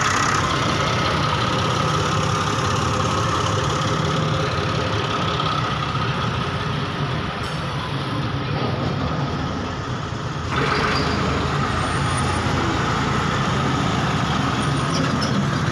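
An engine running steadily, with a thin whine held over the low drone. The sound eases off briefly about eight seconds in and comes back about ten and a half seconds in.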